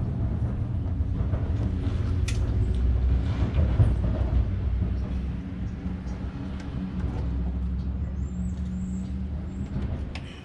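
Low, steady rumble of a running engine. It is loudest about four seconds in and eases off, dropping away near the end.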